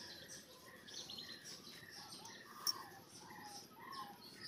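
Several small birds chirping and trilling in short repeated calls, with one sharp click a little over halfway through.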